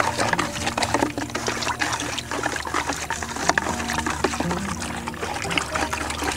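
Water with dissolved fertilizer powder being stirred with a stick in a plastic bucket: swishing and sloshing, with many small clicks and scrapes of the stick against the bucket.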